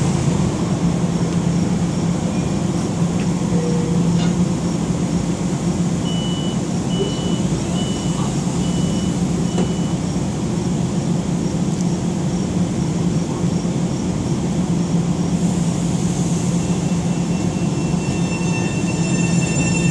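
Long Island Rail Road M7 electric train standing at the platform with a steady loud hum from its onboard equipment. A run of five short high beeps sounds about a third of the way in, and near the end a whine of several steady tones sets in as its motors start to pull it away.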